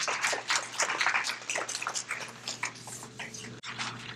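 Applause from a small audience thinning out into scattered, irregular claps, over a steady low hum.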